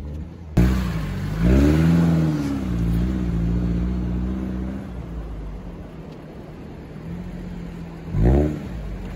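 Maruti Suzuki Gypsy 4x4 engine revving as the jeep drives over rough dirt ground, heard from outside the vehicle. Its pitch rises and falls about two seconds in, runs steadier for a while, then jumps in a short sharp rev near the end.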